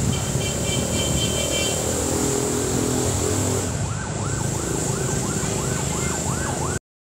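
Background traffic noise, with a siren yelping in rapid rising-and-falling sweeps, about three a second, through the second half; the sound cuts off abruptly near the end.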